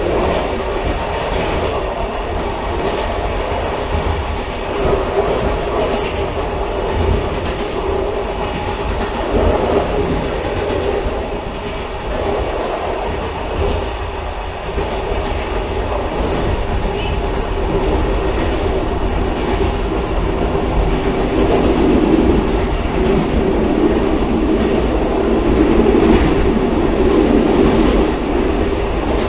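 Railcar running on the track: a continuous loud rumble with wheels clicking over rail joints, the noise swelling a little in the last third.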